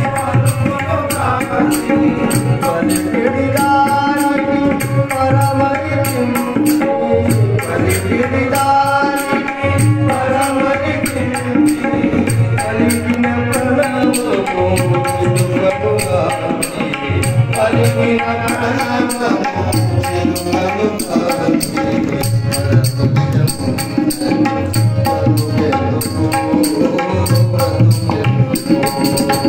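Male voice singing a Telugu devotional song to harmonium and tabla: the harmonium holds sustained reed notes under the melody while the tabla keeps a steady rhythm with deep bass-drum strokes.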